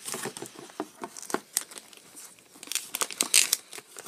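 Cardboard box and clear plastic packaging being pulled open by hand, crinkling and tearing in irregular crackles and rustles, loudest about three seconds in.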